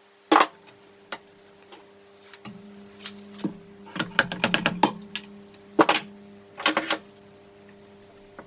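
Hand tools and metal engine parts clicking and knocking during bench disassembly: a sharp knock, a quick run of ticks in the middle, then a few more knocks, over a faint steady hum.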